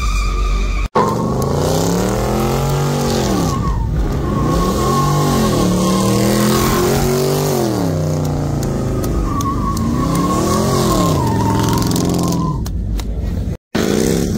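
Dodge Charger doing donuts: the engine revs up and down over and over while the rear tires squeal steadily against the pavement. Short cuts briefly interrupt the sound about a second in and near the end.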